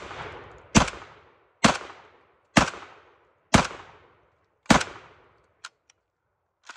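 JTS 12-gauge AK-pattern semi-auto shotgun fired six times in a row with a binary trigger, one shot on each pull and one on each release, a little under a second apart, each shot trailing off in a short echo. A few light clicks follow near the end.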